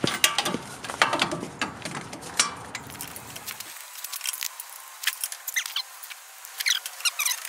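Irregular light metallic clicks and clinks of hand tools and sockets working on the truck's front wheel hub, with a few short high squeaks near the end.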